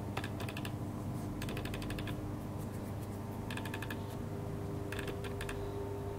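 Suzuki RF600R's inline-four engine idling steadily through an aftermarket silencer on its first start after winter storage. Short runs of rapid light ticking come through about every second and a half.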